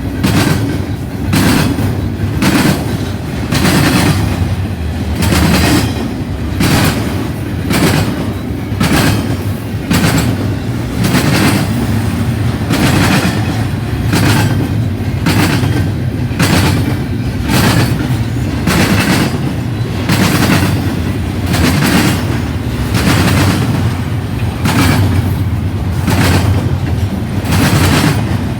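Cars of a CN intermodal freight train rolling past at speed, with a steady low rumble and the wheels clacking sharply in an even rhythm, about one and a half clacks a second.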